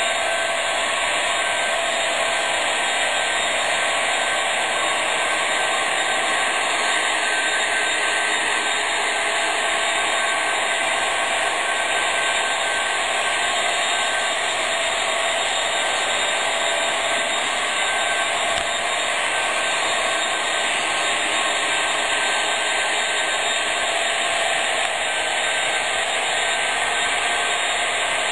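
HO scale MTH SD70M-2 model diesel locomotives running steadily around the track, their Proto-Sound 3.0 onboard diesel engine sound playing through small speakers over the whir of motors and wheels. The sound is a steady noisy drone that keeps one level throughout.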